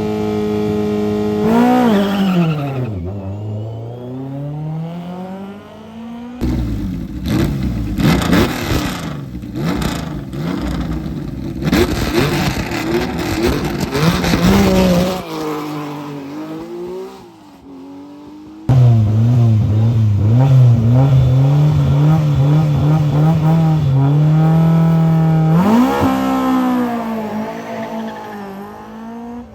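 Historic rally car engines at a stage start, in several short clips cut together: revs held steady on the line, then rising sharply as a car launches and pulls away. The middle clip is a dense, crackling engine sound full of sharp pops.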